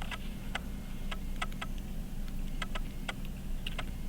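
Small, irregular metal clicks and taps of watchmaker's tools working on a pocket watch movement being taken apart, over a low steady hum.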